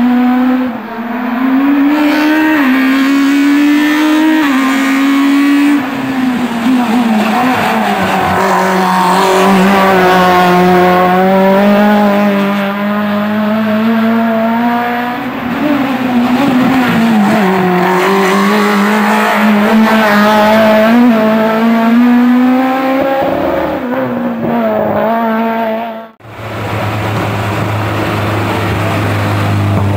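Škoda Octavia Kit Car's two-litre four-cylinder racing engine at high revs, its pitch climbing and falling again and again as it is run through the gears and eased for corners. Near the end the sound cuts off abruptly and gives way to a lower, steadier engine note.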